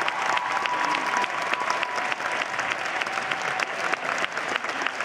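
Studio audience applauding: dense, steady clapping. A last held note of the live band's music fades out under it in the first two seconds.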